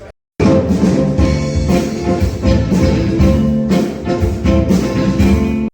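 Background music with instruments and a drum beat, starting abruptly after a short gap and cutting off suddenly at the end.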